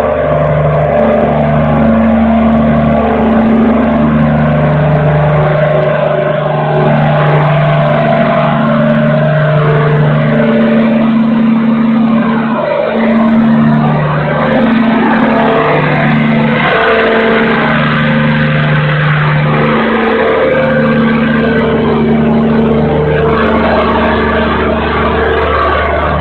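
Several diesel generator sets running at once on factory load testing, a loud steady engine drone with low humming tones that come and go.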